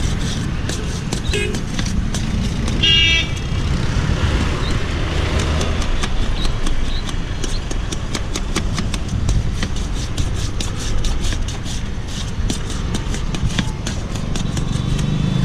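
A knife chopping onion on a stainless steel plate: quick, repeated clicks as the blade hits the metal. Steady road traffic rumbles underneath, and a vehicle horn toots briefly about three seconds in.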